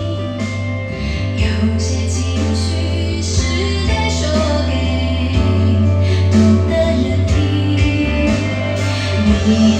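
A pop song with a singing voice, a steady bass line and plucked strings.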